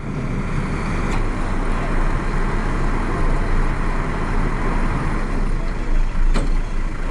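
Heavy truck's diesel engine running steadily under load, with a couple of sharp knocks, one about a second in and one near the end.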